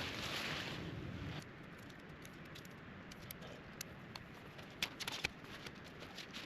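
Camping gear being handled during camp setup: scattered light clicks and ticks with soft rustling. A louder rushing noise drops away abruptly about a second and a half in.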